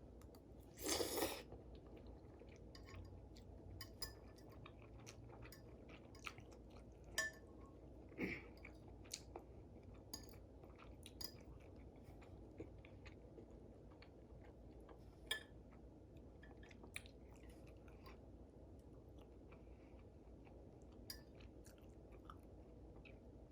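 Quiet close-up sounds of a person eating noodles: chewing, with scattered small mouth clicks and smacks, and a louder noisy sound about a second in.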